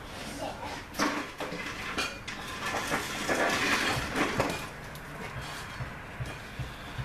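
Metal clinks and clatter of parts and tools being handled, with a sharp clank about a second in and a busier, louder stretch from about three to four and a half seconds.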